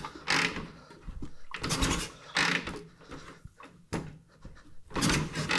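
1937 Harley-Davidson Knucklehead 61 cubic inch V-twin being kicked over by its kick starter several times, each kick a short rush of the engine turning over without firing. These are the priming kicks with the choke on, drawing fuel in before the ignition is switched on.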